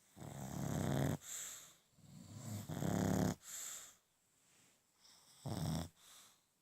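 Snoring: three snoring breaths, each a long buzzing breath followed by a shorter, fainter one. The first two come about two seconds apart, and the third, near the end, is shorter.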